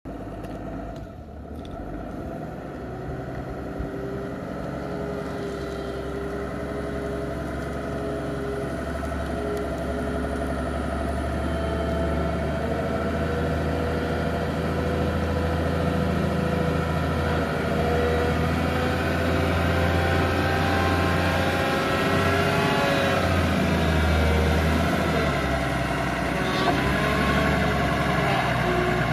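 Linde H80D diesel forklift engine running as the truck drives, its engine speed rising and falling, growing louder as it approaches.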